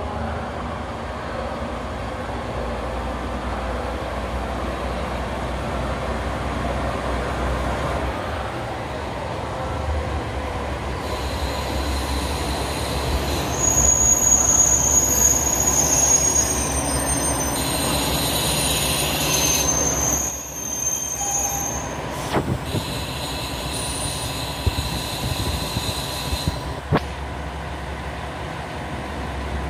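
KiHa 47 diesel railcars pulling slowly into a station, the diesel engine and wheels running under a steady rumble. From about a third of the way in, high-pitched wheel and brake squeal comes in stretches as the train slows, loudest a little before the middle, with a couple of sharp clicks later on.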